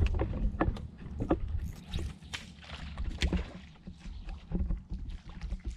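Small boat sitting on calm water: irregular light knocks and splashes, several a second, over a low rumble.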